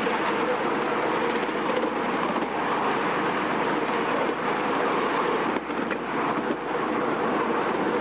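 Miniature ride-on train running along its track, heard from on board: a steady rolling noise of wheels on rail.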